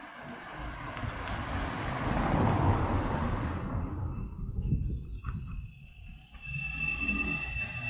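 A car drives past on the street, its tyre and engine noise swelling to a peak a couple of seconds in and fading away. Small birds chirp throughout, and near the end another vehicle's engine comes in with a steady high tone.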